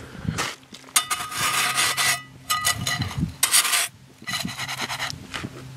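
A metal mess-kit fry pan scraped into crusty snow, scooping it up in several rasping strokes over about four seconds.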